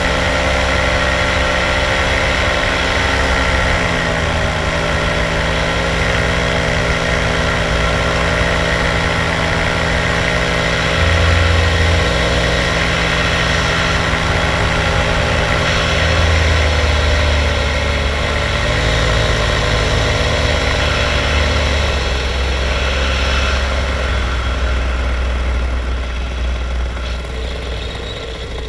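Powered paraglider's (paramotor's) engine and propeller running steadily in flight. Its pitch steps down as it is throttled back about four seconds in and again past twenty seconds, and it gets a little quieter near the end.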